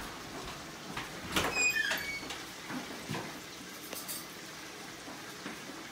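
Kitchen clatter as a spoon is fetched: a brief rattle with a short metallic clink about a second and a half in, then a softer knock about three seconds in.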